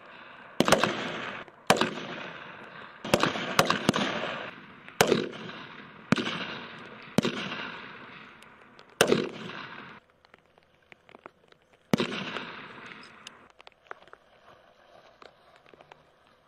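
Several M4 carbines fired in single shots, about ten over the first twelve seconds, spaced roughly a second apart with a few closer together, each crack followed by a rolling echo. This is a zeroing string of aimed single shots, and the firing stops about twelve seconds in.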